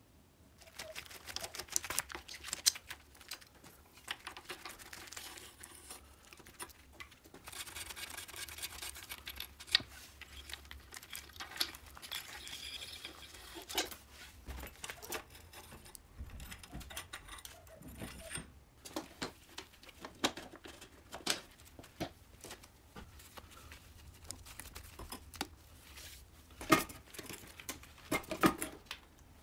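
Workshop handling noise from taking apart an old Riga moped: scattered clicks, knocks and rustling, with the sharpest knocks near the end as gloved hands work the fuel tank loose.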